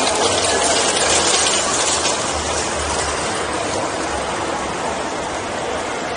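A long train of nested metal luggage trolleys pushed across a hard floor, rolling with a steady rattle, louder over the first two seconds and then easing.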